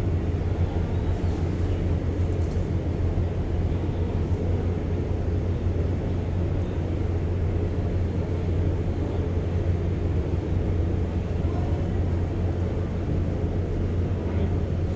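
Steady low rumble aboard a docked cruise ship, with no distinct knocks or calls.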